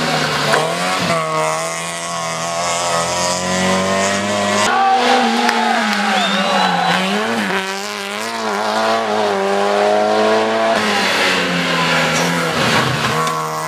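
Rally car engines revving hard through a bend, one car after another. The pitch rises and falls as each car accelerates and changes gear, with a sudden change to a different engine about 4.5 seconds in and again near 11 seconds.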